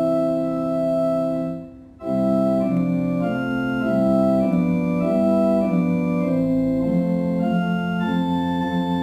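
Organ playing a hymn tune. A held chord dies away about two seconds in, and after a brief pause the next phrase starts, with chords changing about twice a second.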